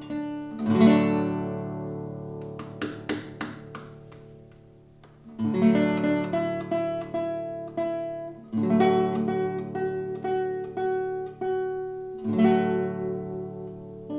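Nylon-string classical guitar played solo: a chord just under a second in rings out and fades for several seconds under a few single plucked notes, then the playing picks up again with fresh chords and fingerpicked notes.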